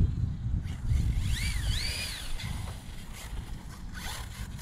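Sensored Reedy brushless motor of an RC short course truck whining up and down in pitch twice about a second in as the throttle is worked, over a low rumble. The freshly rebuilt motor, with its new rotor, is running properly.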